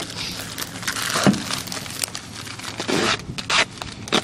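Crinkling, rustling and scraping handling noise with many short sharp crackles.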